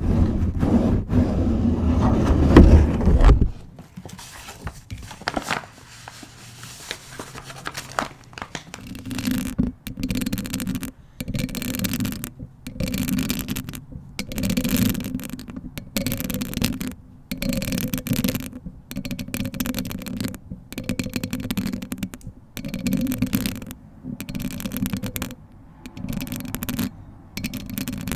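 Close-miked ASMR handling sounds: loud rustling of a paper bag for the first few seconds, then, after a quiet pause, long-nailed hands scratching and brushing directly on a bare microphone in short rhythmic strokes with brief gaps between them.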